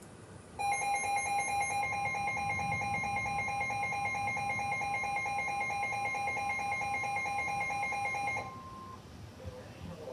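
Emergency alert attention tone, a harsh two-tone electronic alarm with a fast pulsing buzz. It is the kind of alert sent out for a tornado warning. It starts abruptly, sounds for about eight seconds and cuts off suddenly.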